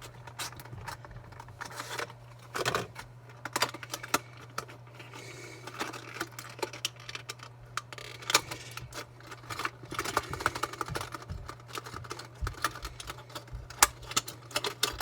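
Irregular clicks, taps and rustles from handling the plastic and cardboard packaging of a 1:64 diecast car, with a steady low hum underneath.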